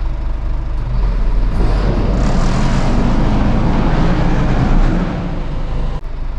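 Lorry's diesel engine idling with a steady low hum, while a louder rushing noise swells from about a second in and fades away about five seconds in.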